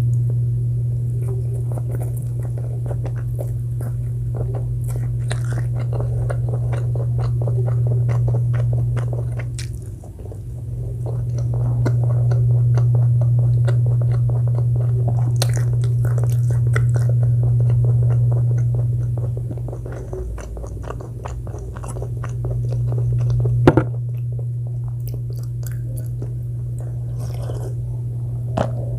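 Close-miked chewing and biting of food, with many small wet, crackly mouth clicks and a sharp click about two thirds of the way through. A steady low hum runs underneath and dips twice.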